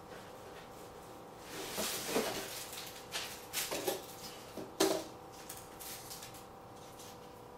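Dog rummaging through garbage spilled on a tile floor: rustling of wrappers and clattering of cans and containers as it noses them, in several bursts with a sharp knock just before five seconds in.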